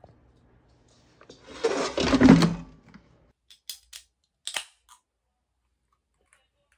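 A loud, noisy clatter lasting about a second and a half. Then a few sharp clicks and a short hiss as the cap of a metal drink bottle is twisted open.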